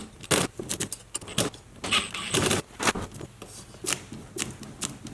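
Irregular metallic clicks and clinks of small hardware and an Allen key being handled and worked, as a pin fastens a rear shock to its suspension bracket on a ride-on toy truck. A short clattering cluster comes about two and a half seconds in.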